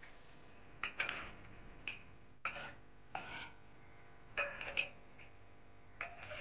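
A spatula scraping and knocking against a wok as meat is stirred and tossed, in irregular sharp scrapes and clinks, sometimes two or three in quick succession.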